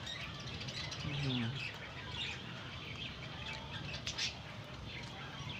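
Small birds chirping repeatedly in the background, with a brief low voice about a second in.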